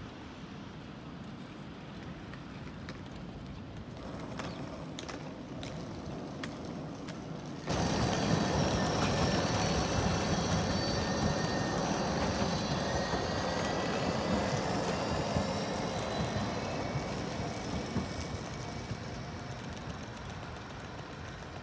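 Tram running on its rails, a steady rumble with a few clicks at first. About eight seconds in it suddenly becomes louder, with faint high whining tones over the running noise, and then slowly fades.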